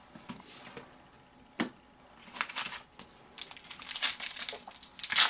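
Foil wrapper of a trading-card pack crinkling as it is handled and torn open, in short crackly bursts that get busier toward the end. A single knock comes about a second and a half in.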